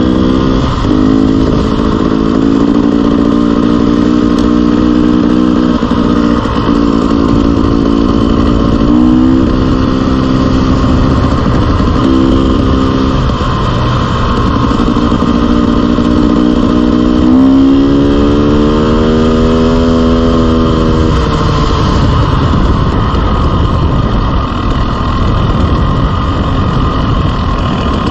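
Dirt bike engine pulling under way, its pitch holding, breaking and picking up again several times as the rider works the throttle and gears, with one long rising rev about two-thirds through before it drops back. A steady rush of wind noise runs under it.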